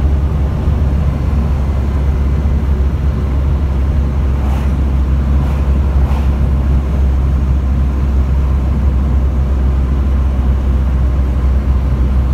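Newly built 1600 cc air-cooled VW flat-four in a Baja Bug running steadily at road speed, a low, even drone mixed with road noise heard from inside the car.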